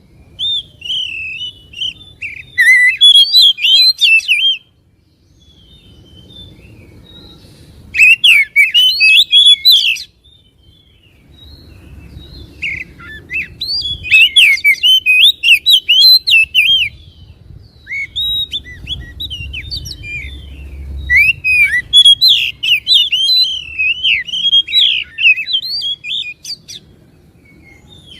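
Oriental magpie-robin singing in four loud bursts of fast, varied whistles and chattering notes, with short pauses between them. This is a lure song meant to make a listening magpie-robin agitated so that it sings and fans its tail.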